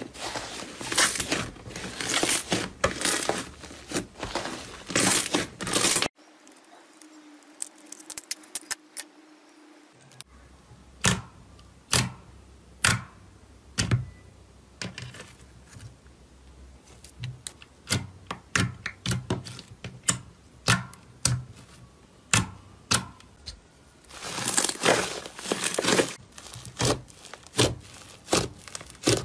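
Slime being squeezed and worked by hand, giving dense crackling and popping. A cut about six seconds in leads to a few quiet seconds, then sparse single pops and clicks. The dense crackling returns about five seconds before the end.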